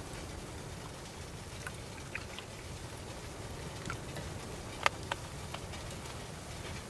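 Wood stove burning with a steady low rumble, small crackles and ticks scattered through it, and one sharper pop about five seconds in; a pot of milk tea is heating on top.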